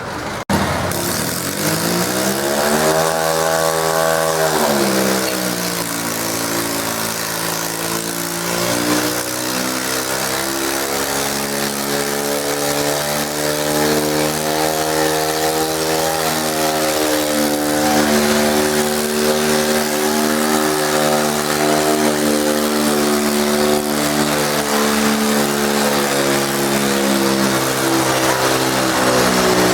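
Garden tractor engine pulling a weight sled: it revs up, drops back briefly, then climbs again and holds at high revs under load, the pitch wavering slowly as the pull goes on.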